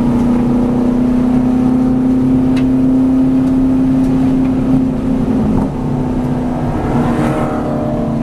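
V8 Supercar's V8 engine heard inside the cabin, pulling hard with its pitch climbing slightly, then backing off about five seconds in as the car slows.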